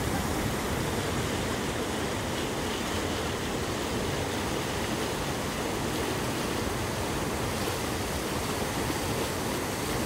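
Steady rush of river water pouring over shallow rocky rapids.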